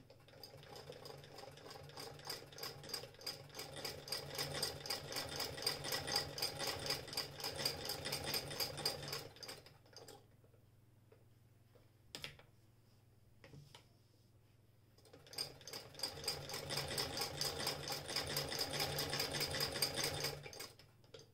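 Antique Vesta (L.O. Dietrich) hand-crank sewing machine stitching: a rapid, even clatter of the needle mechanism in two runs, with a pause of several seconds between them broken by a couple of single clicks.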